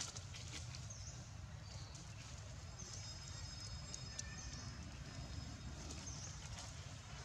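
Outdoor ambience with a steady low rumble, a short high-pitched chirp from a small bird or insect repeating every second or two, and a high steady trill around the middle. A few soft clicks and rustles come near the start.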